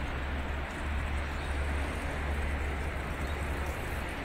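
Steady outdoor background noise: a low rumble with an even hiss over it, with no distinct event.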